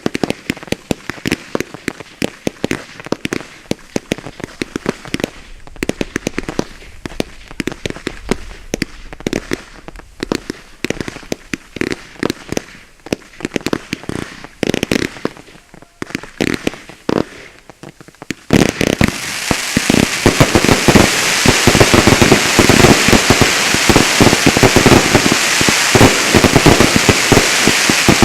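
Fireworks going off in a rapid series of separate sharp bangs. About two-thirds of the way through, they suddenly give way to a much louder, dense, unbroken crackling barrage.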